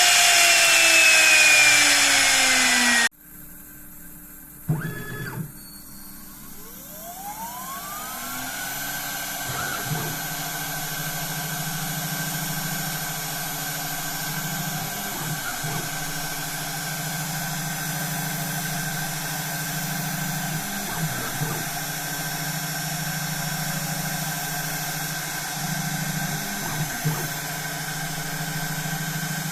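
Small CNC machine spindle spinning down with falling pitch, then, after an abrupt break about three seconds in, spinning up with a rising whine and running steadily. Its note dips briefly about every five or six seconds as it works the PCB.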